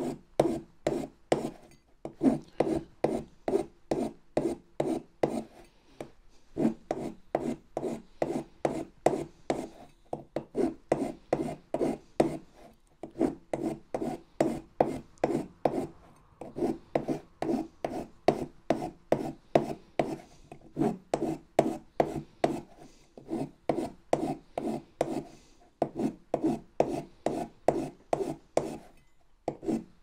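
A flat hand file is stroked back and forth across the teeth of a metal sprocket wheel from an Armortek 1/6-scale Tiger 1 model, deburring the sharp edges off the cogs. The filing strokes are quick and even, about three or four a second, and come in runs of a few seconds with short pauses between them.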